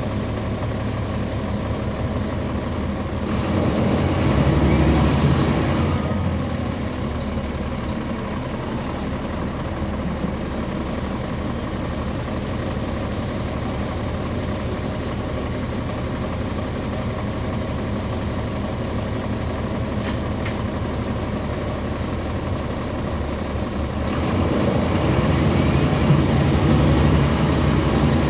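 Caterpillar C13 diesel engine and ZF Ecomat automatic transmission of a NABI 40-SFW transit bus heard from the rear seats on board, running steadily. It swells louder for a few seconds about three seconds in and again near the end.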